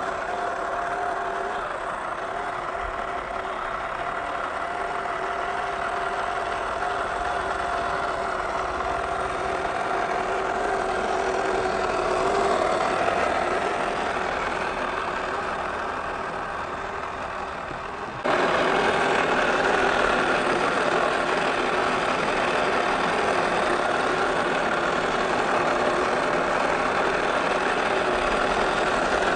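WPL C24 RC truck's electric motor and gearbox running with a steady whine as it drives on dirt. About eighteen seconds in, the sound jumps suddenly louder and fuller.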